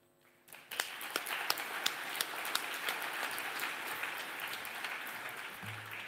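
An audience applauding, starting about half a second in and dying away near the end.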